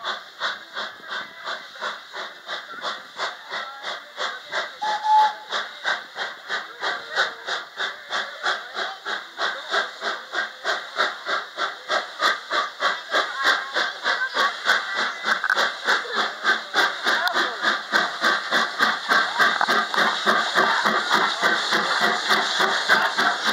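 Thomas the Tank Engine replica steam locomotive chuffing as it pulls its train, with even exhaust beats about three a second that grow louder as it draws close. A short high tone sounds about five seconds in.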